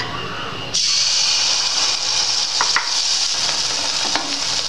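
Pua batter hits hot oil and starts sizzling about a second in: a loud, steady sizzle as the sweet flour-and-sugar fritter deep-fries. Two light clicks sound near the middle.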